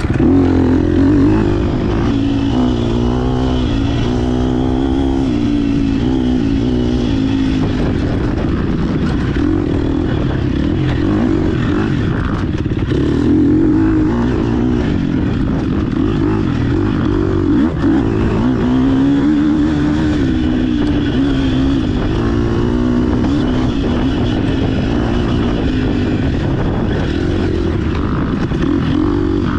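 GasGas EX 250F dirt bike's single-cylinder four-stroke engine revving up and down as it is ridden along a trail, the pitch rising and falling again and again with throttle and gear changes.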